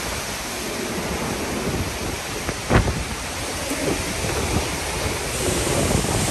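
Hurricane-force wind and heavy driving rain in a loud, steady rush, gusting and buffeting the microphone. A brief thump comes a little under three seconds in.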